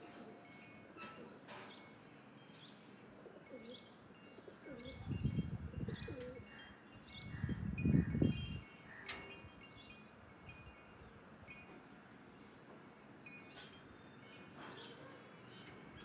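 Light metallic chimes tinkling at random with occasional bird chirps. Two louder low rumbles come about five and eight seconds in.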